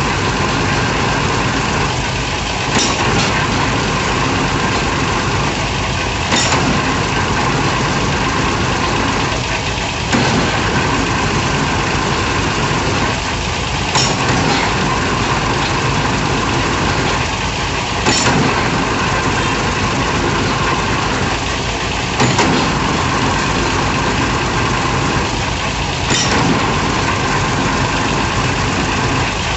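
Hydraulic piling rig's diesel engine running steadily, with a sharp metallic clank repeating about every four seconds.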